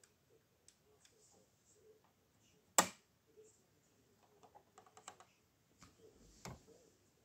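Hands handling a plastic LEGO spaceship model: faint clicks and taps of fingers on the bricks, with one sharp click about three seconds in, a quick run of small clicks around five seconds and another knock shortly before the end.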